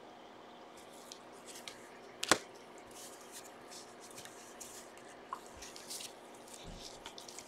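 Trading cards being handled and flipped through: faint scattered ticks and slides of card stock, with one sharper click about two seconds in.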